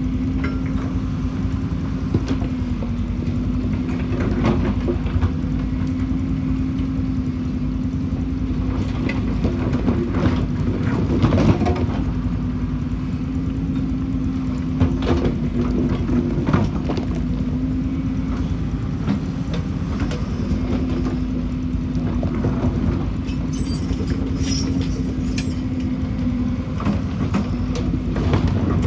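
Excavator's diesel engine running steadily with a constant hum, with scattered knocks and clatters of the bucket and stones throughout.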